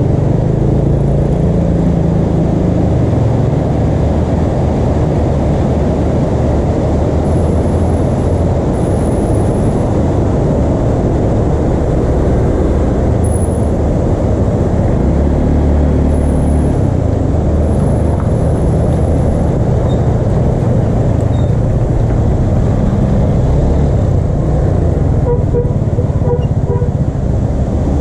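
Steady loud rushing roar of a swollen, fast-flowing river in flood. Motor traffic runs along the road beside it, with a vehicle engine rising and falling around the middle.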